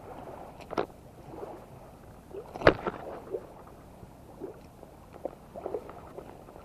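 Rustling and clatter of a caught fish being handled and unhooked: a few sharp clicks and knocks from the metal fish grip and unhooking tool, the loudest about two and a half seconds in, with lighter taps after it.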